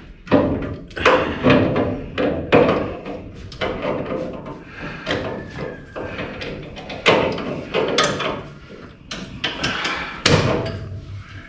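Wrenches clanking and knocking against the steel tube frame of a Bandolero race car as suspension bolts are worked loose: irregular metallic knocks and clinks, several a second, with louder bangs now and then.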